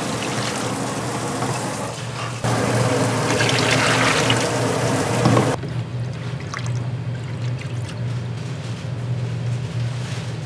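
Water pouring in two spells: the first runs until about two seconds in, then a louder one starts shortly after and stops a little past halfway, leaving a few faint clicks.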